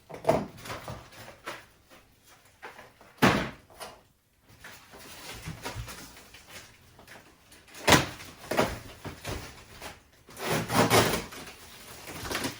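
Cardboard packing being cut and pulled apart as exercise-bike parts are worked out of the box: a series of scrapes, rustles and knocks. The loudest come about three seconds in, about eight seconds in, and again around ten to eleven seconds in.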